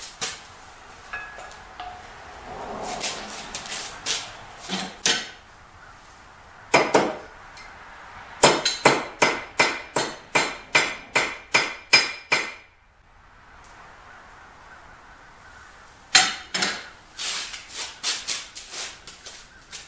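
Hammer blows on a small steel bar, straightening the bent automatic-shutoff bar of a horizontal band saw: a few single blows, then a quick even run of about a dozen strikes at roughly three a second, then more blows near the end.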